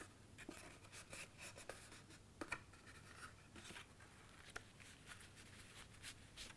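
Faint rustling and light taps of cardstock being folded and pressed down by hand, as a glued side tab is closed around a paper box.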